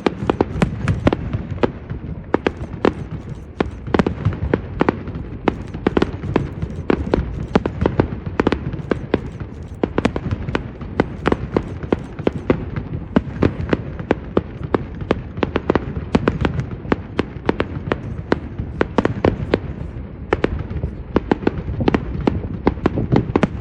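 Fireworks going off in a dense barrage: many sharp cracks and pops a second over a continuous low rumble.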